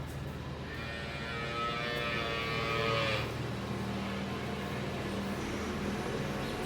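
A calf moos once, a long call of about two and a half seconds that drops in pitch at its end, over a steady low hum.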